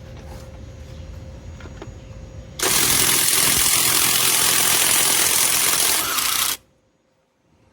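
Cordless brushless impact wrench running loudly for about four seconds, starting about two and a half seconds in and cutting off suddenly.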